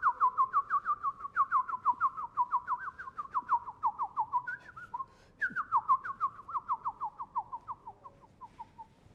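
A bird-like whistled song of quick, falling notes, about five a second, in two long runs with a short break about halfway through; the second run fades away near the end.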